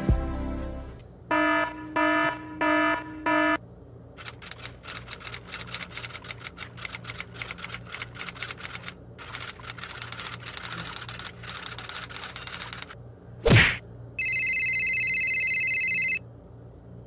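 Electronic timer-style sounds: four short beeps, then rapid ticking with a brief break, a quick whoosh, and a steady high-pitched beep lasting about two seconds.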